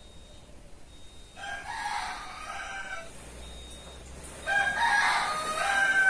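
A rooster crowing twice, once about a second and a half in and again near the end; the second crow is louder.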